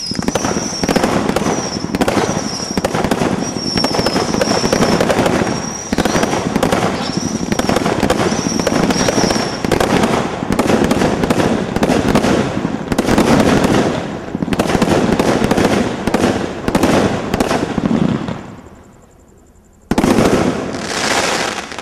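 Consumer firework cake, a 107-shot single-ignition combination Roman candle barrage, firing rapid volleys of shots and bursting, crackling stars in its finale. The firing thins out and stops about eighteen seconds in, then one last loud volley goes off near the end.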